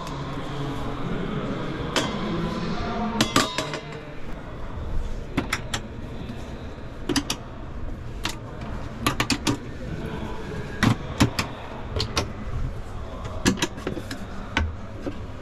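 Busy exhibition-hall ambience: a low murmur of voices with many irregular sharp clicks and knocks.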